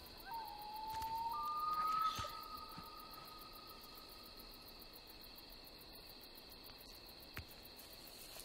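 Night insect ambience of crickets chirping steadily. A held tone sits over it, stepping up in pitch early on, swelling about two seconds in and then fading away.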